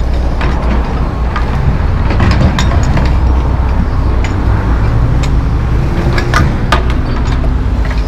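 John Deere 245G track excavator's diesel engine running steadily under load as it digs in dirt and concrete debris, with scattered sharp clanks and knocks from the bucket working the pile.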